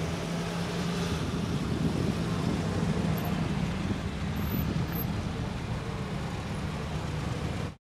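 A slow procession of classic cars driving past close by: a steady low engine hum with tyre and road noise, swelling a little as the nearest cars go by. The sound cuts off abruptly at the very end.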